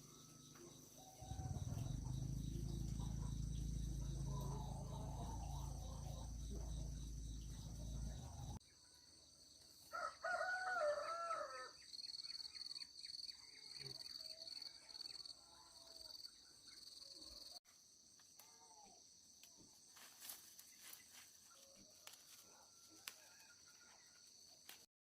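Rural ambience: a steady high insect drone, with a low rumble in the first third that cuts off abruptly. About ten seconds in, a chicken or rooster gives a loud call, followed by fainter scattered calls.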